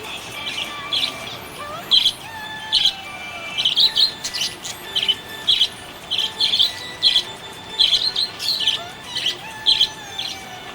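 Small parrots chirping: a run of short, sharp chirps, about two a second, over fainter drawn-out whistling tones.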